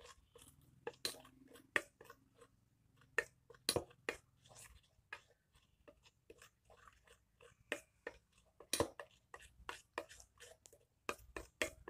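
Metal spoon stirring a gritty coffee-grounds scrub paste in a metal bowl: irregular clicks and scrapes of the spoon against the bowl, with a wet squish of the paste.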